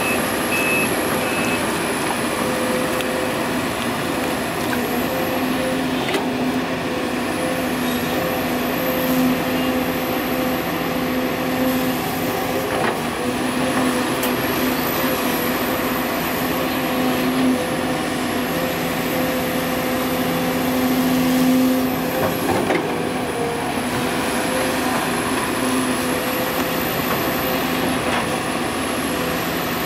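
Heavy diesel machinery running steadily, an excavator working beside a dump truck, with a high whine that rises and falls every few seconds. A truck's reversing beeper sounds briefly at the start.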